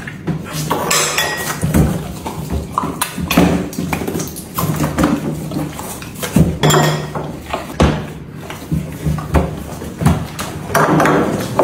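A black-and-white dairy cow eating vegetables off a wooden table, with irregular knocks and clatters of things on the tabletop and a man's laughter.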